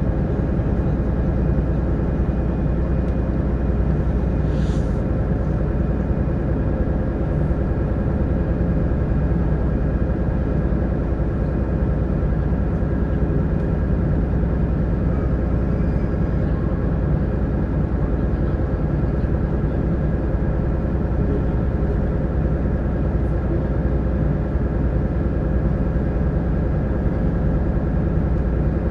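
Sightseeing boat's engine running steadily while the boat cruises, a constant low drone.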